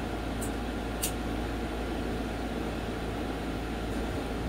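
Steady room noise, a hum with an even hiss, like a fan or air conditioner running, with two faint short clicks about half a second and a second in.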